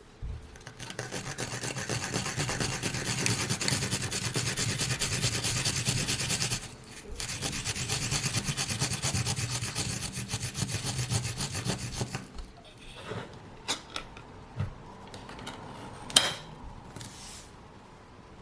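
Rapid, even rasping strokes of kitchen food preparation, with a short break near the middle, stopping after about twelve seconds. A few scattered clicks and one sharper knock follow.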